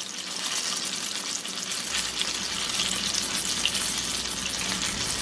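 Pancake batter frying in hot oil in a frying pan: a steady sizzle with fine crackle.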